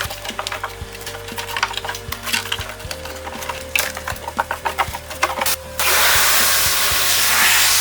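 Irregular tapping and scraping of hand work over steady background music, then about six seconds in a loud, steady rushing hiss starts abruptly and keeps going.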